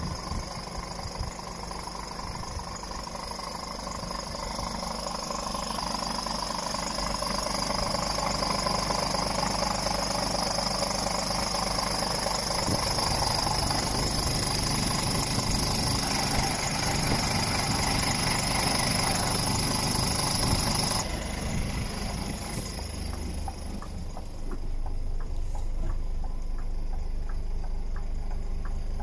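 Scania R410 truck's inline-six diesel engine idling steadily, with a steady high whine over the low running sound. About two-thirds of the way through, the high whine drops away and the sound becomes duller.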